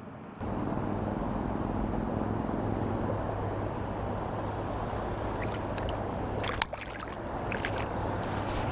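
Water rushing and gurgling, with a steady low hum beneath it and a few sharp clicks in the second half.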